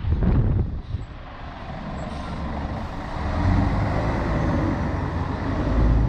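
City bus driving past and pulling away, its engine and tyres giving a steady rumble that grows louder toward the end, with gusts of wind buffeting the microphone in the first second.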